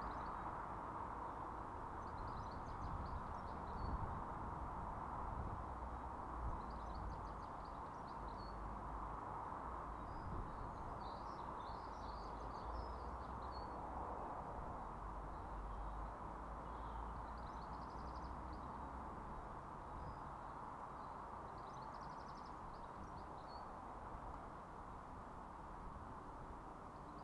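A small songbird singing short high trilled phrases every four to five seconds over a steady outdoor background hum.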